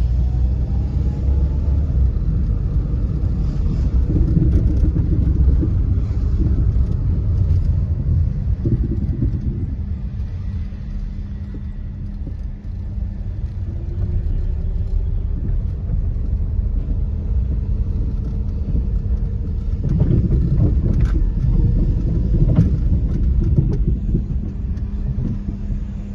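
Steady low rumble of a motor vehicle, with a constant hum underneath that swells louder twice.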